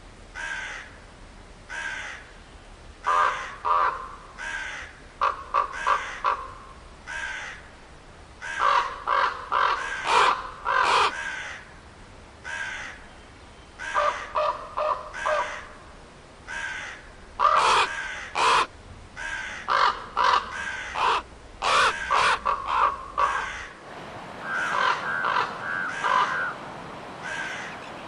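Crows cawing repeatedly, harsh calls coming singly and in quick runs of several caws.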